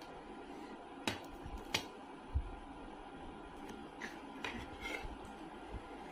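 Tableware clinking: a saucer and small bowl set down on a wooden table with a steel spoon, giving two sharp clicks and a dull knock in the first two and a half seconds, then lighter clinks of the spoon against the dish around four to five seconds in, one briefly ringing.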